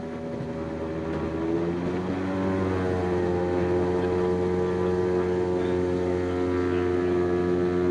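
Lake Amphibian's pusher engine and propeller, heard from inside the cockpit, rising in pitch and getting louder about two seconds in as power comes up, then holding a steady high-power drone as the hull runs across the water.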